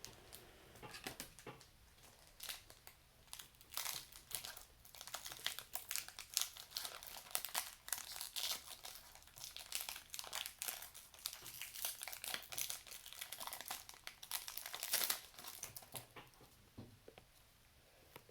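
Foil wrapper of a Pokémon trading card booster pack being crinkled and torn open in many short crackles, loudest near the end, then going quiet.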